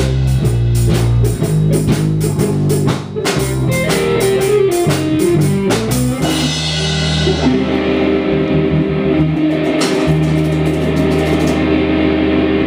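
Live rock trio of electric guitar, bass guitar and drum kit playing an upbeat groove. After about six seconds the drum hits thin out, and the guitar and bass ring on in long held notes.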